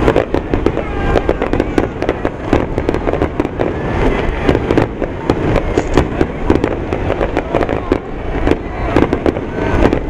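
Aerial fireworks shells bursting in a dense, continuous barrage: many sharp overlapping bangs and crackles each second over a steady low rumble.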